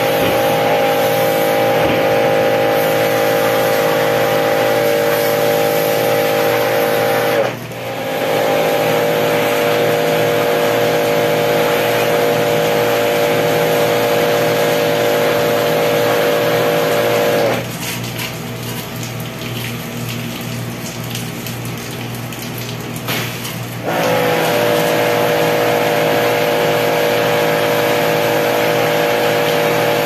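Pressure washer running with a steady whine as its wand sprays water. The motor cuts out for a moment about a quarter of the way in, stops for several seconds past the middle, then starts again with a short rise in pitch.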